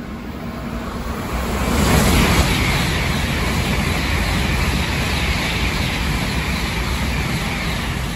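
Tokaido Shinkansen bullet train passing through the station at speed on the non-stop main track: a loud rush of air and wheel noise that swells about two seconds in, holds steady, and begins to fade near the end.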